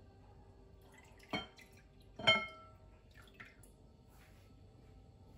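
Milk being poured from a plastic bottle into a glass mixing bowl. Two clinks on the glass ring briefly, about a second and two seconds in, and fainter pouring sounds follow.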